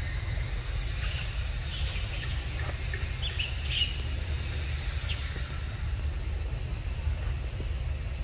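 Outdoor ambience with a steady low rumble of wind on the microphone and a scatter of short, high bird chirps in the first half.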